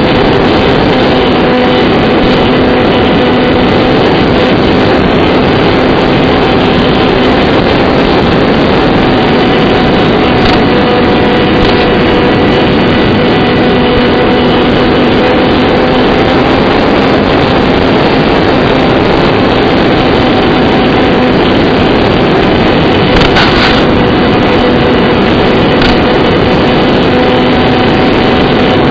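Electric motor and propeller of an RC flying wing running at a steady throttle: a constant hum, almost buried under a loud, even rush of wind noise. A few faint clicks come through during it.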